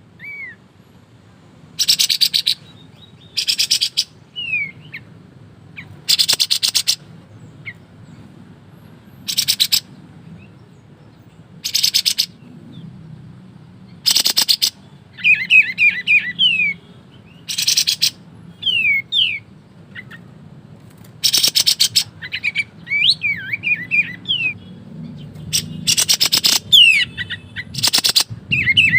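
Kapas tembak songbird singing: loud, very rapid shot-like bursts ('ngebren') that come about every two seconds, with softer whistled chirps and quick sliding notes between them.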